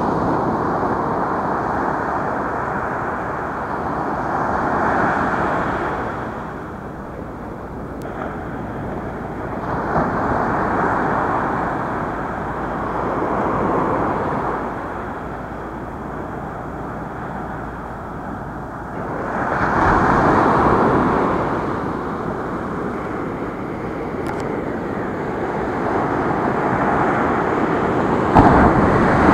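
Small ocean waves breaking and washing up a sandy beach, the surf swelling and fading every few seconds.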